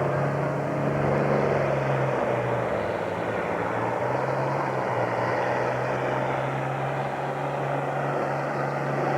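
Modified diesel farm tractor engine of a pulling tractor running with a steady drone and a strong low hum.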